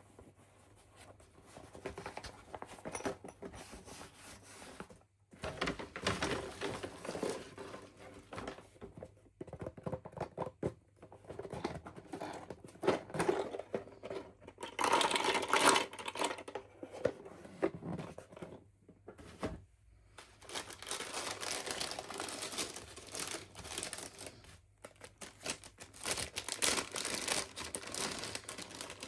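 Plastic and paper toy packaging being crinkled and torn open by hand: irregular rustles, crackles and clicks in clusters with short pauses, loudest about halfway through.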